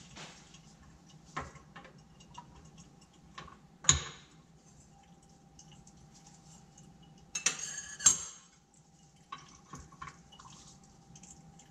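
Small clinks and knocks of lab glassware and equipment being handled, with one sharp knock about four seconds in and a brief clatter near eight seconds, over a faint steady hum.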